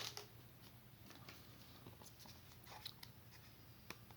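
Faint rustling and soft clicks of Pokémon trading cards and their packaging being handled.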